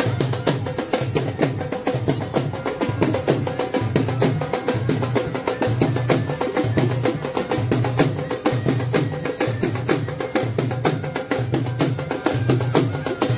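Loud, fast dance music driven by quick, dense drum strokes over a low beat about twice a second, with some sustained melody behind it.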